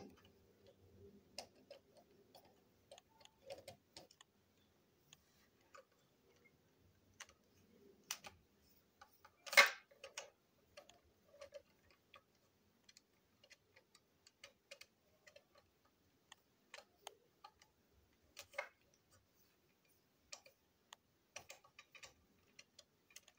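Screwdriver working the small screws of a plastic toy train engine's chassis: scattered light clicks and taps of metal on plastic, with one louder sharp click near the middle.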